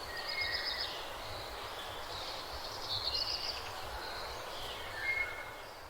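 Birds chirping and twittering faintly over steady background noise, with a few short high chirps and warbles scattered through.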